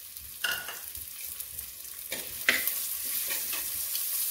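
Shallots, green chilli and curry leaves sizzling in hot oil in a clay pot, with a steel spoon stirring, scraping and clicking against the pot. The sizzle grows louder about halfway through as the stirring gets going.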